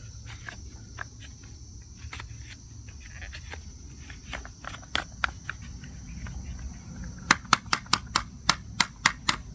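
Scattered clicks and knocks from clearing caked sawdust out of an electric chainsaw's housing by hand, ending in a quick run of about ten sharp taps. A steady high insect drone, like crickets, carries on behind.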